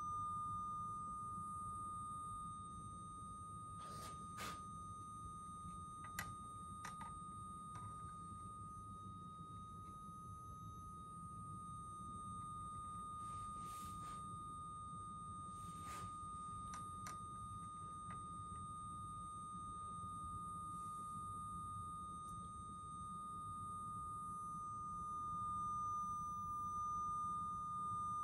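Loudspeaker at the end of an open resonance tube sounding a steady pure tone near 1,200 Hz. It swells louder near the end as the frequency is tuned onto the tube's fifth resonance. A few faint clicks come from equipment knobs being turned.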